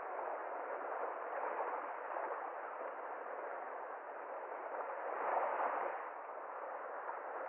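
Small sea waves lapping and washing onto a pebble shore: a steady rush of water that swells twice, most strongly about five and a half seconds in.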